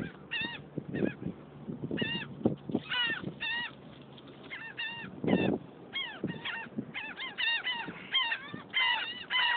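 A flock of terns calling over and over: short, arching cries that overlap one another, the birds excited by food being thrown to them. A dull thud about five seconds in.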